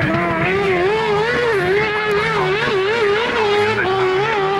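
Ford Escort RS Cosworth rally car's turbocharged four-cylinder engine held at high revs, its pitch wavering up and down about twice a second as the throttle is worked with the car sliding sideways.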